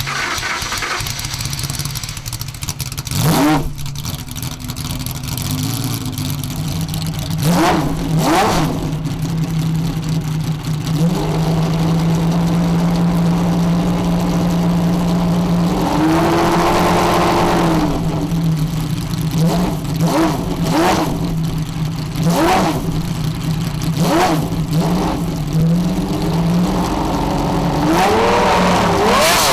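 Ferrari F50 GT1's V12 idling while still warming up after a cold start, revved in short, sharp throttle blips every few seconds. About halfway through, it is held at higher revs for a couple of seconds.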